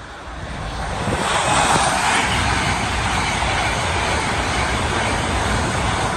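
LNER Azuma high-speed train passing at speed: a rushing noise that builds over the first second or so, holds loud and steady while the coaches go by, and starts to fade at the very end.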